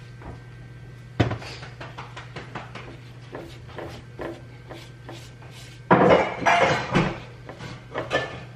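Kitchen clatter: utensils and dishes knocking and clinking in quick, irregular taps, louder and busier about six seconds in, over a steady low hum.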